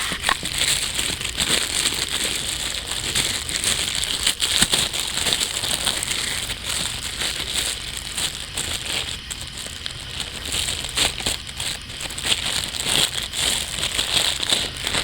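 Plastic packaging crinkling and rustling as it is handled, with many small crackles and clicks throughout.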